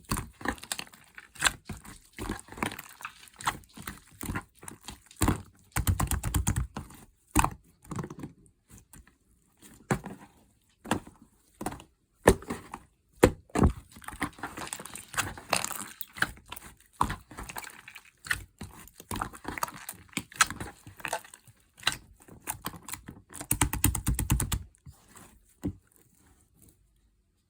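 Slime being squished, folded and pressed by hand: a steady run of sticky clicks and crackles, with two denser spells of crackling pops, about six seconds in and near the end, before it goes quiet in the last second or so.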